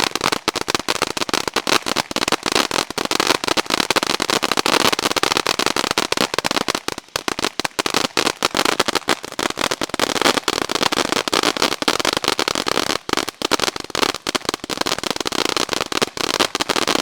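Ground firework fountain burning, a continuous hiss packed with dense, rapid crackling.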